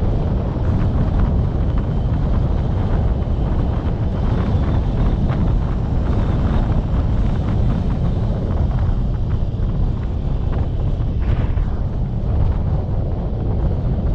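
Wind rushing over the microphone of a camera on a moving vehicle: a steady low rumble without a break.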